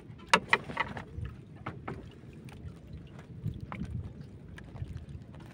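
Wind and water noise on a small fishing boat at sea, with scattered clicks and knocks as a fishing line is worked by hand; a sharp knock about a third of a second in is the loudest.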